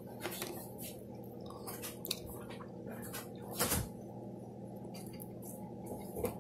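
Quiet room with a low steady hum and a few faint taps and rustles from a toddler's hands on a plastic high-chair tray, the loudest tap about three and a half seconds in.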